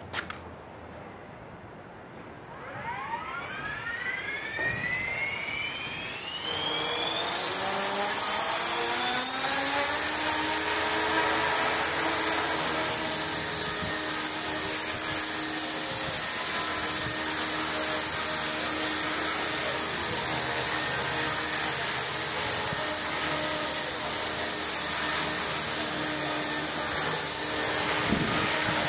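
Electric 450-size RC helicopter (Titan T-Rex 450) spooling up: the motor and rotor whine rises steadily in pitch over the first several seconds. It then holds at a steady pitch as the helicopter lifts off and hovers.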